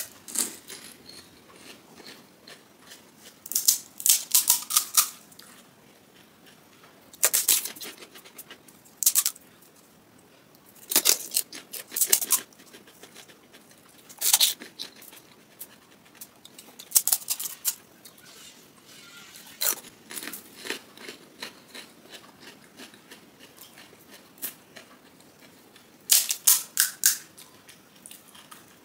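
Crisp, hollow panipuri (golgappa) shells being cracked and crunched in the mouth, filled with spiced water. Clusters of sharp crackling come every few seconds, with faint wet chewing and mouth sounds between.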